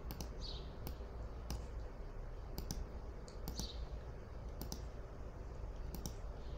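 Computer mouse button clicking, often in quick press-and-release pairs, about once a second, as single stitches are filled in on a cross-stitch chart.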